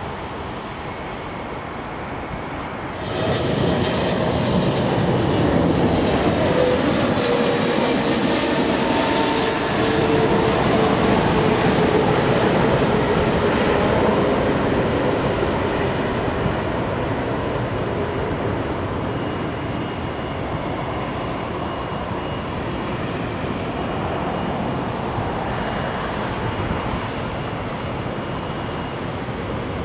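A steady rush of spray and wind as a Boeing 777 touches down on a wet runway. About three seconds in, the loud jet engine noise of a second Boeing 777 on final approach cuts in, with a whine that falls slowly in pitch as it passes. The engine noise then eases off towards its touchdown.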